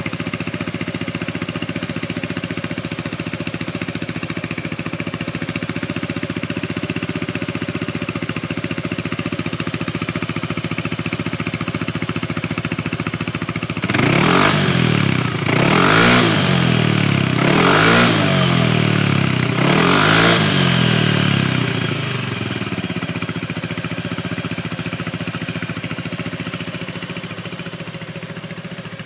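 Yamaha Majesty S scooter's single-cylinder engine idling steadily through an aftermarket SP Tadao Power Box exhaust. About halfway it is revved about four times, each rev rising and falling about two seconds apart, then it settles back to idle.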